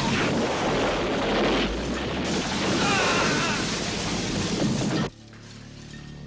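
A car crashing through glass doors into a building: a long, dense crash of smashing glass and wreckage that cuts off abruptly about five seconds in, with music under it.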